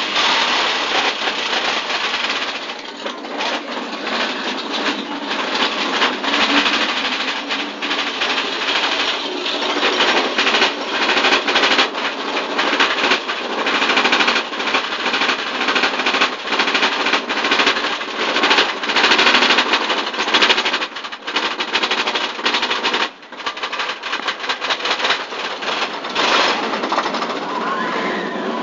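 Big Thunder Mountain Railroad mine-train roller coaster climbing a lift hill, heard from a seat on the train: a loud, rapid, continuous clatter of the lift chain and the anti-rollback ratchet under the cars, with a brief lull about three quarters of the way through.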